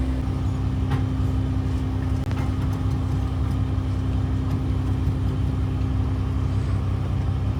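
Fishing boat's engine running steadily: a constant low drone with a steady hum.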